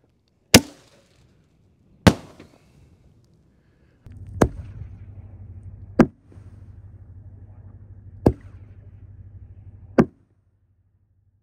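Sharp bangs of 5-inch Nishiki willow canister shells being fired and breaking overhead: six reports, spaced about one and a half to two seconds apart. A steady low hum sits underneath from about four seconds in until the last bang.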